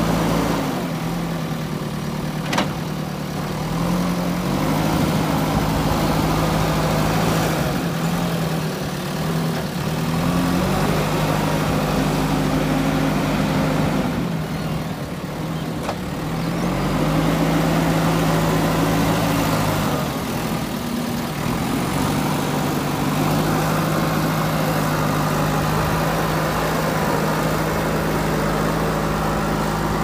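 JCB 3DX backhoe loader's diesel engine running as the machine works, its revs rising and falling several times. There is a single sharp knock about two and a half seconds in.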